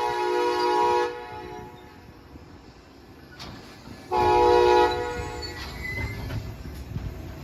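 Amtrak passenger locomotive horn: a blast that cuts off about a second in, then a second, short blast about four seconds in. A low rumble of the train runs underneath.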